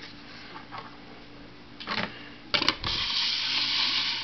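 A record being handled on a Columbia Masterwork solid-state record player over a faint steady hum: a clatter about two and a half seconds in, then a steady hiss that stops abruptly near the end.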